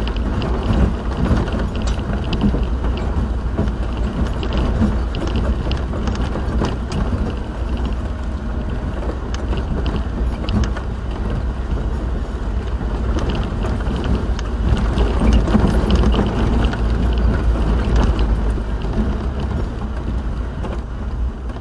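Steady low rumble of a moving vehicle, road and engine noise picked up by a dashcam microphone, with scattered faint clicks.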